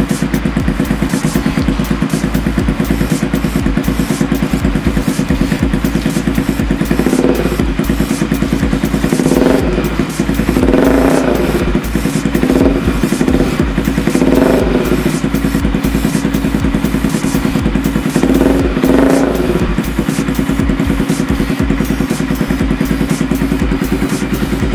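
Bajaj Pulsar 200NS single-cylinder engine idling through an aftermarket Yoshimura slip-on exhaust, with several short throttle blips between about seven and twenty seconds in.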